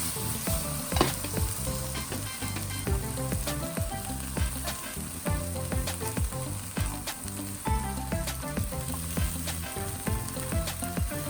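Mizuna, bacon and cheese rolls wrapped in fried tofu sizzling as they fry, a steady hiss with many small crackles and pops.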